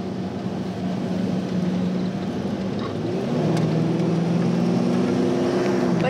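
2002 Jeep Wrangler TJ engine running steadily under way, heard from inside the cabin. Its note changes about halfway through and settles lower.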